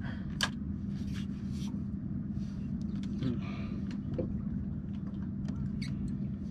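A boat engine running steadily at a low hum, with scattered light clicks and taps over it.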